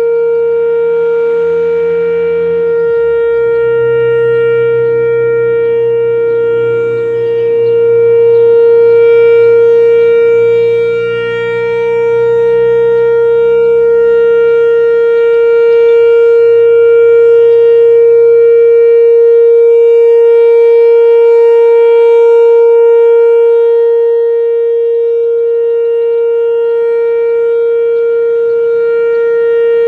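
Whelen WPS-3016 oscillating electronic outdoor warning siren sounding its steady alert tone, one unwavering pitch whose loudness swells and fades as the rotating speaker head turns.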